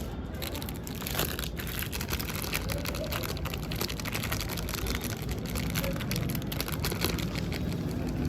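Continuous dense crackling and rustling as a large heap of mini balloons and their packaging is handled.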